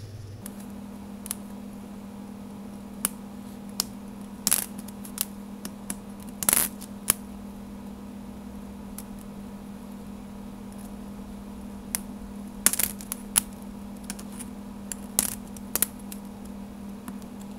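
Sharp little plastic clicks and taps, coming irregularly a second or more apart, as the snap-on center caps of a DIY Rubik's cube are popped off with a finger and put down. A steady low hum runs underneath.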